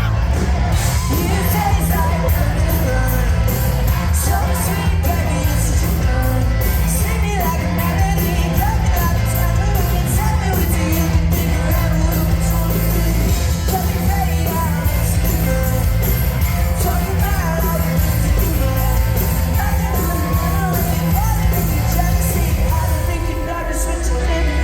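Live pop-rock band playing a song with singing, heard from the audience in a large hall, over a heavy bass and a steady drum beat.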